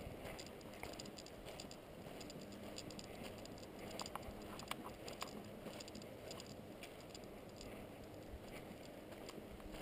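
Faint footsteps and scuffing of a hiker walking a forest trail, with scattered small clicks and crackles.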